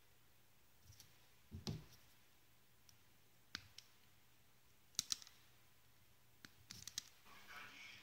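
Side cutters snipping off the excess component leads on the underside of a small soldered perfboard: a handful of sharp clicks, some in quick pairs, over otherwise quiet room tone.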